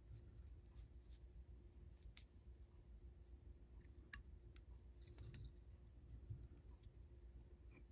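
Near silence with a few faint, scattered small clicks from fly-tying tools and thread being handled at the vise while thread wraps are cinched down over the foam.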